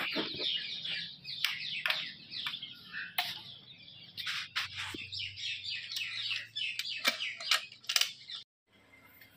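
Small birds chirping busily, many quick high chirps and short falling notes overlapping, cutting off abruptly about eight and a half seconds in.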